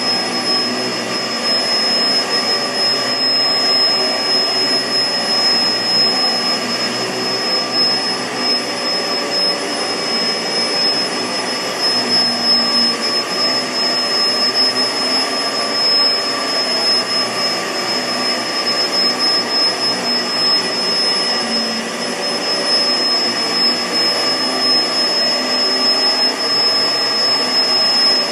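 Kenmore CrossOver Max bagless upright vacuum cleaner running steadily. Its SIP blower motor gives a steady high-pitched whine over the even rush of air.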